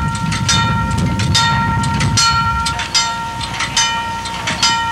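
A railroad crossing bell ringing in repeated strokes, about two a second, over the low rumble of an electric trolley car.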